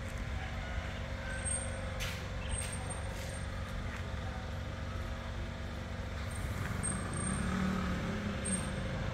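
Tracked rice combine harvester's engine running steadily, a continuous low rumble with a faint steady tone above it.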